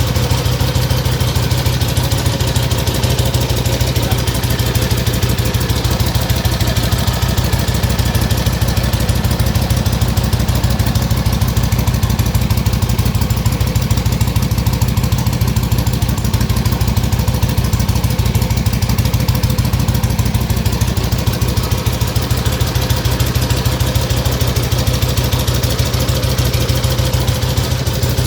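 1957 Harley-Davidson XLH Sportster's V-twin engine idling steadily with an even beat, holding the same speed throughout.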